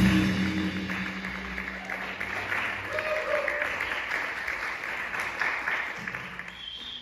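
The jazz quartet's final chord rings out and dies away over about two seconds, followed by audience applause that fades out.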